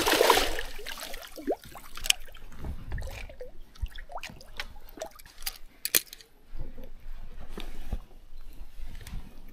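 A small hooked Murray cod splashing at the water's surface about the rocks as it is lifted out by hand, the loudest sound, in the first second. Scattered light clicks and knocks follow as the fish and the lure's hooks are handled.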